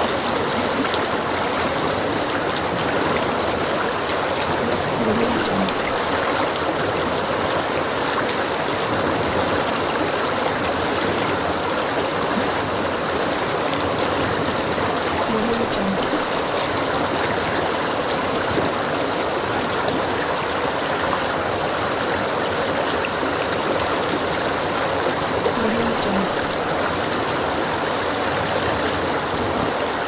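Flowing river stream: a steady rush and babble of water. The same small gurgle comes back about every ten seconds as the recording loops.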